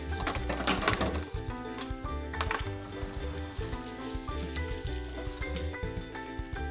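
Diced guanciale (cured pork cheek) sizzling as it fries in its own fat in a frying pan, with no oil added, over background music.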